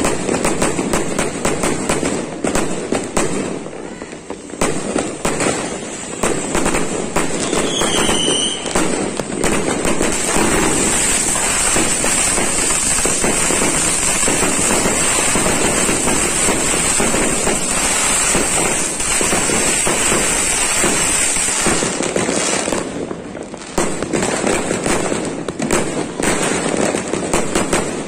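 Fireworks going off: dense crackling and popping of bursting shells. Through the middle a ground fountain hisses steadily, and about eight seconds in there is a short falling whistle.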